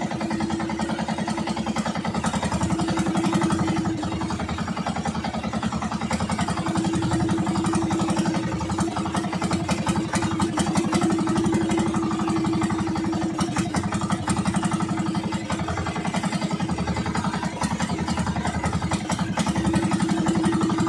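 Engine of a motorized outrigger fishing boat running steadily while the boat is underway, a rapid, even engine beat with a low drone.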